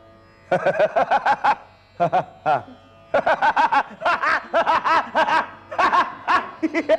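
A man laughing in a made-up 'laughter raga': quick runs of pitched 'ha-ha' laughs, set to rise and fall like a sung melodic phrase, with two short breaks early on before a long unbroken run.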